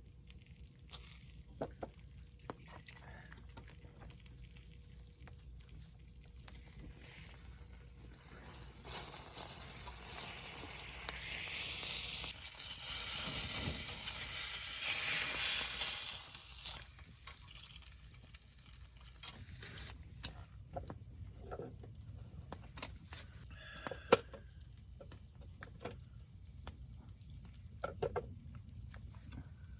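Food sizzling in a hot pan over a campfire. The sizzle builds to its loudest about halfway through, then falls away, with scattered sharp clicks and knocks throughout.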